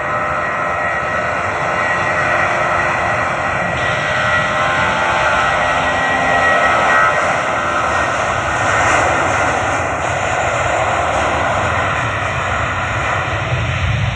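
Jet engines of a LATAM Airbus A320 running steadily as the airliner rolls along the runway, with a faint whine over the roar in the first few seconds.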